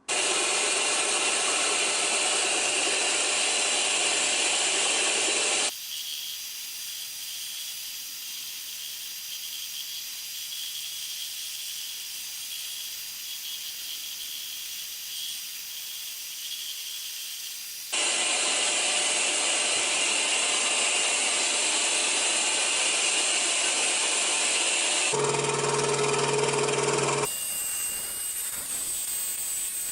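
Electric scroll saw running and cutting through thin plywood, a steady buzzing hiss. The sound changes abruptly several times, at about 6, 18 and 25 seconds, as if separate stretches of cutting were spliced together; for about two seconds near the end a steady humming tone stands out.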